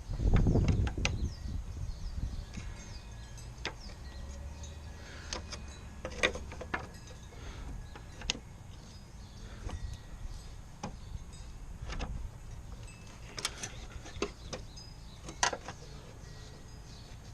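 A big screwdriver prying and scraping at a shredded drive belt jammed around the pulley of a self-propelled mower's drive: irregular metal clicks and scrapes, with a heavy thump about half a second in.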